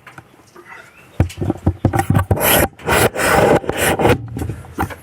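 Rubbing and scraping handling noises with several sharp knocks, starting about a second in and continuing nearly to the end.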